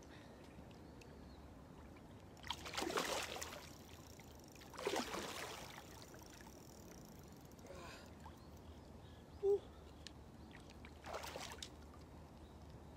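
A big hooked fish thrashing and splashing at the surface close to the bank, in three short splashy bursts, with a brief squeak between the second and third.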